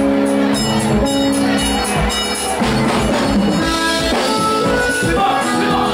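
Band music with a steady beat: held melodic notes over a regular drum pulse.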